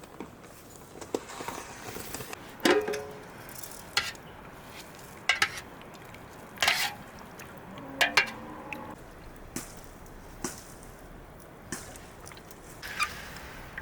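Kitchenware being handled: scattered clinks and knocks at irregular intervals, a few of them ringing briefly.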